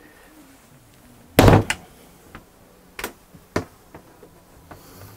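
Galley storage doors on a boat being shut. There is one loud knock about a second and a half in, then a few lighter clicks and knocks.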